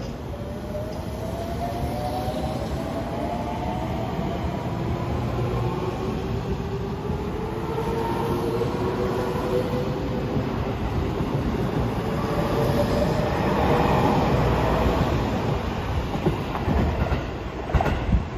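Seibu 20000 series electric train pulling away: its inverter and traction motors give a whine of several tones that climbs slowly as it gathers speed, over the rumble of the cars rolling past. A few sharp clacks near the end.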